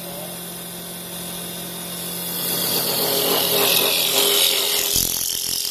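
CNC wood lathe running with a steady motor hum; about two seconds in, its carbide cutter bites into the spinning wood blank and a loud hissing cut builds up and continues.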